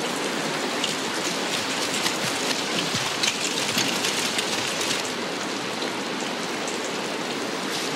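Rain falling steadily: a dense, even hiss with scattered sharp drop splashes, most of them in the first half.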